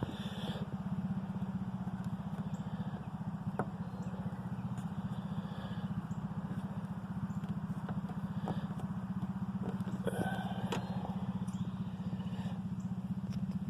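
A small motor running steadily with a fast, even buzz, with a few light clicks and taps over it.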